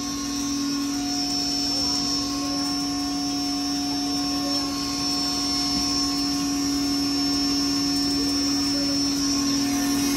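20 hp double-chamber stoneless maize grinder running under full load: a steady mechanical drone with several constant whining tones over a rushing noise.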